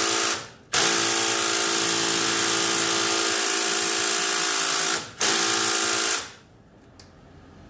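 Milwaukee cordless power tool with a 12 mm socket running on a rear brake caliper bolt in three runs, the middle one about four seconds long, then stopping about six seconds in. The bolt is tight and does not break loose at this setting.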